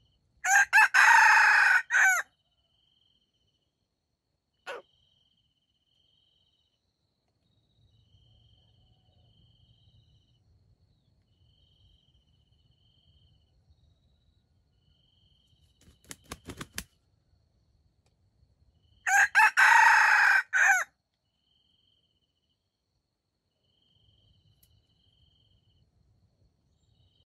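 Junglefowl rooster crowing twice, about twenty seconds apart, each crow a loud call of about two seconds in several parts. A brief single call comes a few seconds after the first crow.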